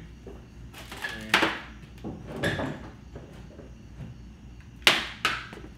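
Fiberglass mini truck body knocking and scraping against the go-kart frame as it is handled and set in place: a handful of sharp knocks, the loudest two close together near the end.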